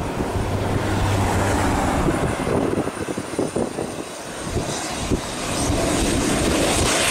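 Pilatus PC-12 single-engine turboprop approaching low on final, its engine and propeller drone. The drone grows louder over the last couple of seconds, with irregular low rumbles in the middle.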